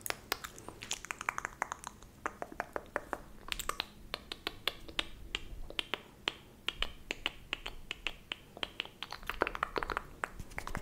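Close-miked ASMR mouth sounds: quick, irregular wet clicks and pops, several a second, with no words.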